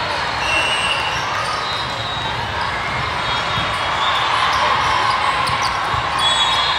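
Din of a large hall full of volleyball courts: balls thumping off hands and the floor, a blur of many distant voices, and two short high-pitched tones, one early and one near the end.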